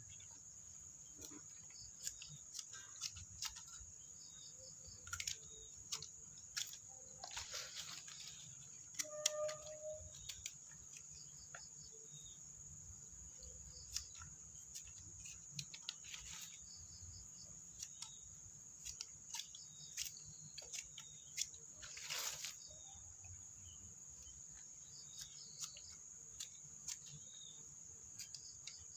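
Steady high-pitched insect trill, with scattered light clicks and rustles.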